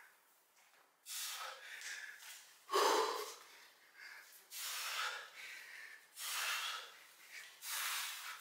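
A man breathing hard from exertion during a kettlebell workout: five loud, noisy breaths about one and a half seconds apart, the strongest about three seconds in.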